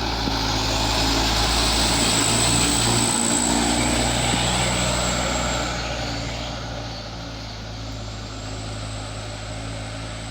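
Medium-size diesel tour bus passing close by: engine and road noise loudest over the first five or so seconds, then falling away about six seconds in.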